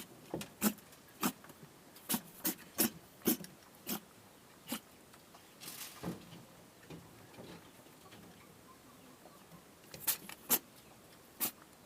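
A doe rabbit sneezing again and again: short, sharp sneezes in quick succession, about eight in the first five seconds, then a pause and three more near the end. The sneezing is set off by hay dust in her nose; the rabbit is otherwise healthy.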